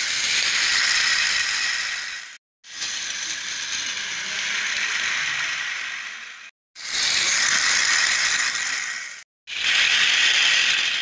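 Centy Toys plastic passenger train running on its plastic track, a steady mechanical whirring and rattling of its small motor, gears and wheels. The sound breaks off for a moment three times.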